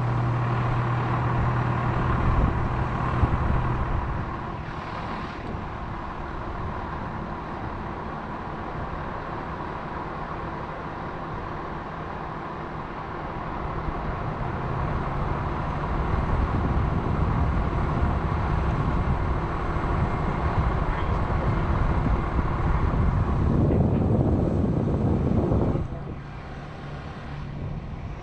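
Crane truck's engine running as the crane works. It is louder for the first few seconds, with a low hum that stops about four seconds in, then builds up again through the second half and drops back suddenly about two seconds before the end.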